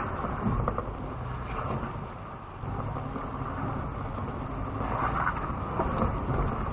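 Lexus GX470's 4.7-litre V8 running low and steady as the SUV crawls over rocks and dirt, heard from inside the cabin. A few knocks come from the vehicle working over the terrain about half a second in and again near the end.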